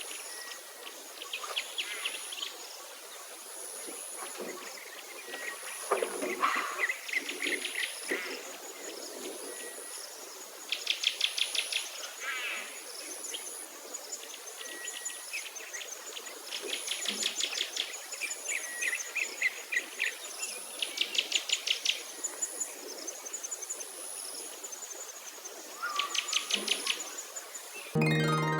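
Outdoor chirping and rapid high trills in short repeated bursts, like birdsong or insects, over a faint high pulsing note about once a second. Plucked harp-like music comes in at the very end.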